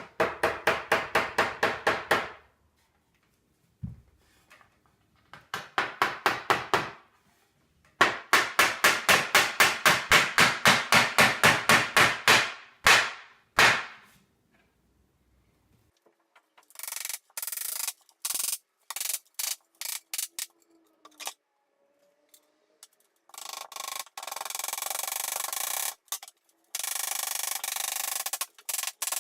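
Hammer driving wood nails into wooden boards, in fast runs of sharp strikes about five a second, the pace of sped-up footage. In the second half, patchy stretches of a steady rasping noise take over.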